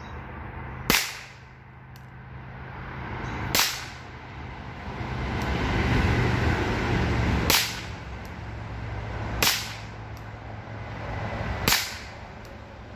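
Five shots from a Rohm RG20 revolver firing CCI .22 Short rounds, each a sharp, light crack, spaced unevenly two to four seconds apart. Faint clicks come between some of the shots, and a low background rumble swells and fades in the middle.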